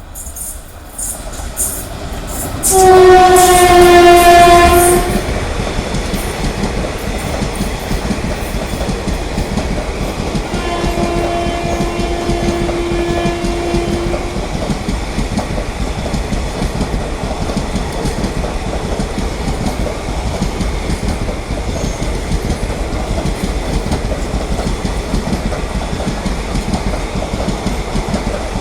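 WAP4 electric locomotive sounding its horn twice as the train runs through at speed. A loud blast about three seconds in, slightly falling in pitch, is followed about ten seconds in by a quieter, longer one. Under both, and after them, is the steady rumble of the train's wheels on the track.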